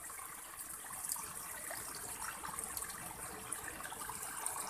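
Water flowing steadily over a small drop in an irrigation channel, a continuous gushing trickle.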